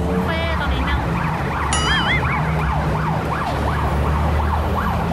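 An emergency siren sweeping rapidly up and down, about three times a second, over the steady low hum of road traffic.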